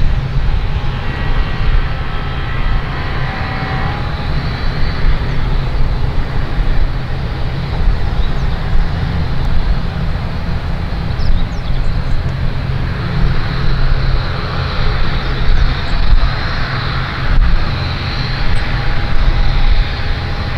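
Boeing 737-800 airliner's CFM56-7B turbofan engines running at low taxi power as the jet turns around on the runway: a steady rumble with a faint high whine.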